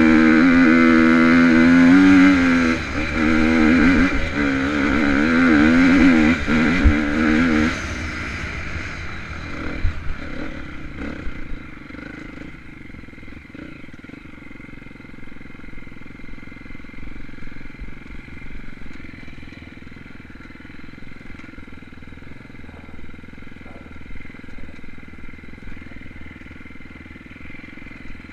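Dirt bike engine running hard under load on a steep dirt hill climb, its pitch rising and falling with the throttle. About eight seconds in it drops to a much quieter, steady idle.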